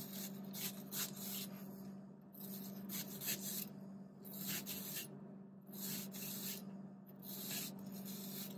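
A kitchen knife slicing a red onion into rings on a plastic cutting board: short repeated cuts, about two to three a second, over a low steady hum.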